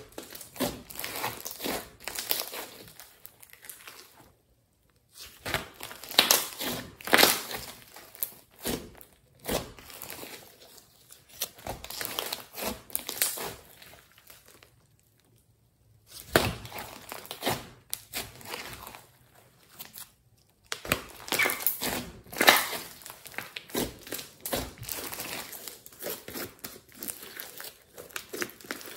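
Thick glossy clay slime being squeezed, stretched and folded by hand: irregular sticky clicking and crackling, broken by three short pauses.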